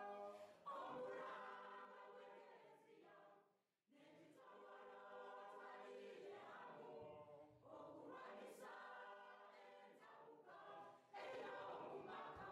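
Faint choir singing, in phrases separated by short pauses.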